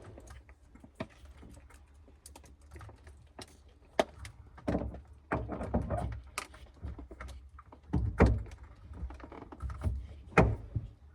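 Irregular knocks and clicks as a Works Bell short steering-wheel hub is worked onto the steering column, with the loudest knocks about four, eight and ten seconds in.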